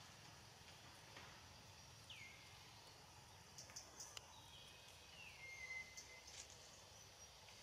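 Quiet forest ambience: two faint high whistled calls that fall in pitch, one about two seconds in and a longer one about five seconds in, with a few light clicks and rustles over a steady low hiss.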